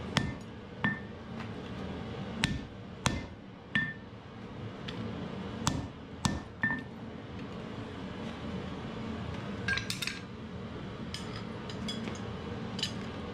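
Hand hammer striking red-hot wrought iron axe stock on an anvil: irregular blows, several followed by a brief high ring from the anvil. Lighter taps come in the second half.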